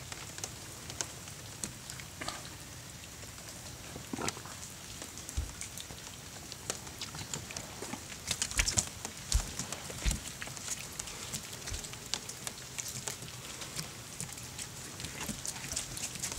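Wet Saluki dogs moving about close by on a wooden deck: scattered light clicks and patters, with a few dull knocks, loudest about halfway through.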